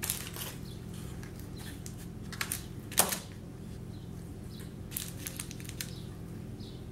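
Light clicks and taps of empty snail shells and a knife being handled while the shells are filled with parsley butter, with the loudest tap about three seconds in; a steady low hum lies underneath.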